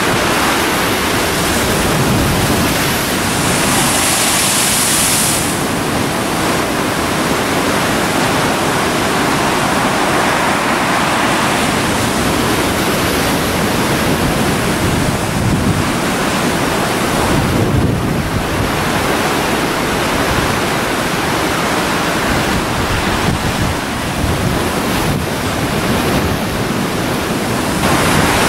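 Rough sea breaking against a rock breakwater and pier, with wind blowing on the microphone: a loud, steady rush that swells now and then.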